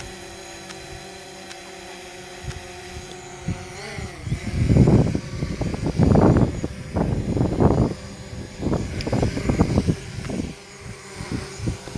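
Small drone's propellers humming steadily, the pitch dipping briefly about four seconds in. After that, gusts of wind buffet the microphone again and again and become the loudest sound.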